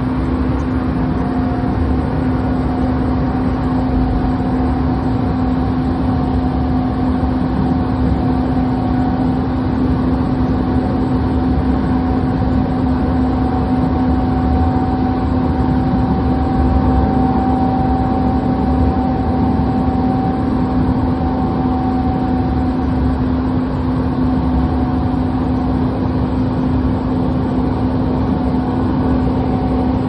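Siemens S200 light rail vehicle running steadily: a constant hum and a fainter whine over a rumbling noise, the whine rising a little mid-way and easing back down.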